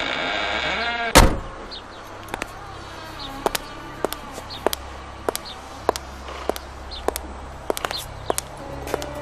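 A heavy wooden door creaks open with a falling groan, then shuts with one loud thud about a second in. High-heeled boots then click on hard pavement, about one and a half steps a second.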